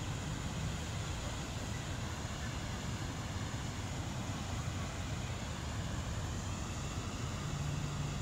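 Steady rushing of water pouring over a low concrete dam spillway, an even noise without breaks.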